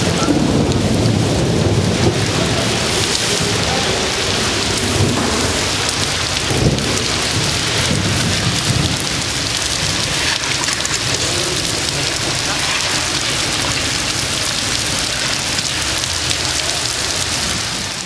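Heavy rain pouring down steadily in a dense hiss, with a low rumble underneath and a single knock about seven seconds in.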